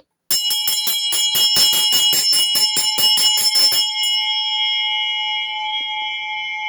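Handbell, the largest of a set of twelve, tuned near A5 (slightly flat), rung rapidly with about five strikes a second for three and a half seconds, then left to ring out and slowly fade.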